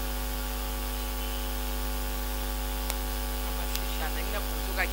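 Steady electrical mains hum with hiss in the microphone's audio, and a few small clicks in the second half.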